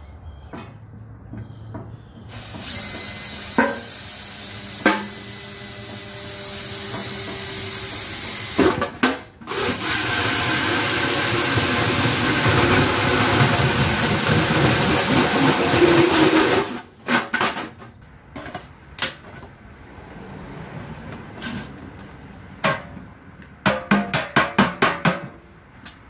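Cordless Makita drill driving a hole saw through a metal can lid, cutting in two long spells, the second louder. After it stops come scattered clicks and knocks, with a quick run of clicks near the end.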